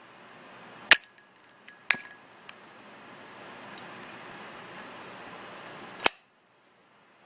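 Zippo lighter being worked: the lid flicks open with a sharp metallic clink that rings briefly, a second ringing click follows about a second later, and after a low steady hiss the lid snaps shut with a sharp click near the end.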